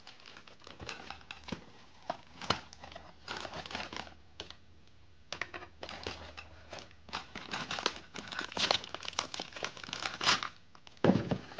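Paper and cardboard packaging insert and a clear plastic bag being handled and crinkled, an irregular crackling with some tearing, sparse at first and busiest in the second half, ending with a heavier handling knock.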